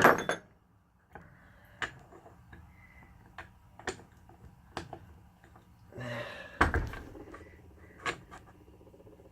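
Metal parts of a Spartan Locker differential locker being handled: scattered light clicks and knocks, with a louder rattle and thump a little after halfway.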